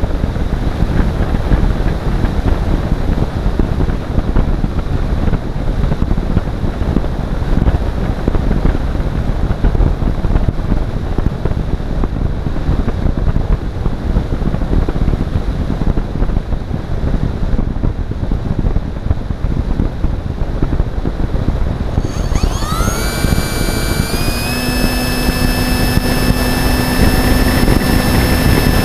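Heavy wind rush over a model aircraft's onboard camera microphone while it glides. About 22 seconds in, the model's motor and propeller spin up with a rising whine, then settle into a steady high-pitched drone.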